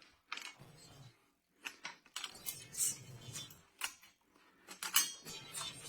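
Scattered light clicks and clinks of small metal parts and tools being handled, with brief rustles between them.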